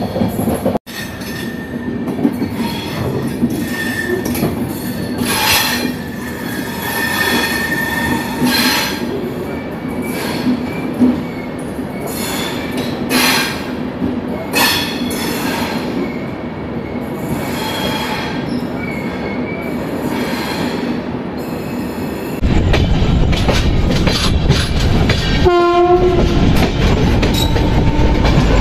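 CR Rajdhani Express running at speed, heard from on board: steady rumble of the wheels on the rails with irregular clatter and brief squeals. Near the end the running noise becomes louder and heavier, and a short locomotive horn blast sounds a few seconds before the end.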